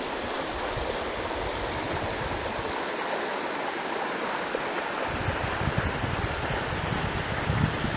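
Shallow river running over a stony riffle: a steady rushing of water. From about five seconds in, low gusts of wind rumble on the microphone.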